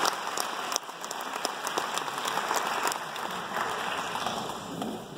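Audience applauding, a dense patter of clapping that thins and dies away near the end.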